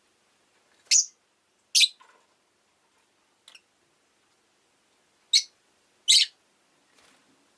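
Rosy-faced lovebird giving short, sharp, high-pitched chirps: four loud ones in two pairs, with a fainter one between the pairs and another near the end.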